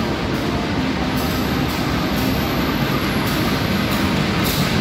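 KAI diesel locomotive running into the station with a train, a steady rumble of the engine and wheels on the rails. A faint high whine slowly falls in pitch through the middle.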